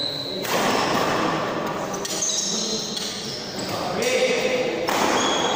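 Badminton doubles rally in a large echoing hall: rackets striking the shuttlecock and shoes squeaking on the court, with players' voices mixed in.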